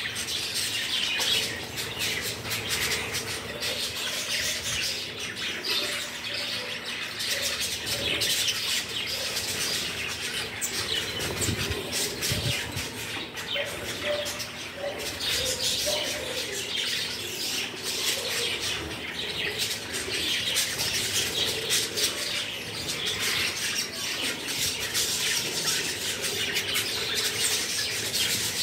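A flock of budgerigars chattering continuously, a dense mix of many short high chirps and warbles.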